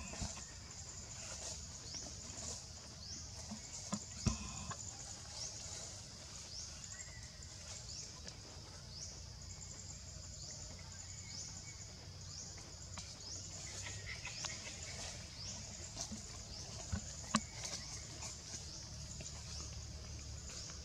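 High, steady insect buzzing that pulses about every two-thirds of a second, with a low rumble beneath it. Two sharp clicks stand out, a few seconds in and again near the end.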